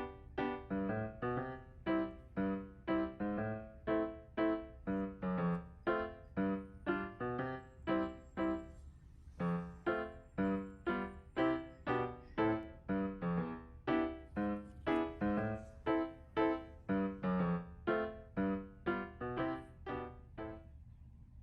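Background music: a light keyboard tune of short, detached notes at a steady pace, about two to three a second.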